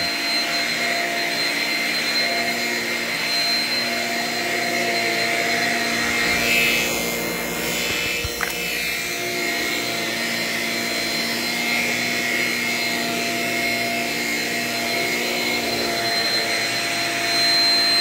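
Shark vacuum cleaner running steadily over carpet, its motor giving a constant whine over airflow hiss. About halfway through, the hiss briefly swells and there is a small click.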